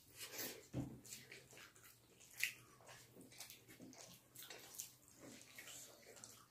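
Close, wet mouth sounds of people eating rice and chicken curry by hand: irregular chewing and lip smacking, with fingers squishing rice against steel plates. One sharper smack or click stands out about two and a half seconds in.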